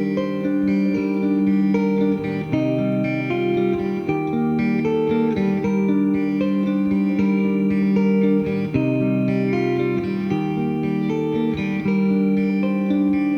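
Instrumental passage of a live song with no singing: guitar playing held notes and chords that change every second or so, with other band instruments.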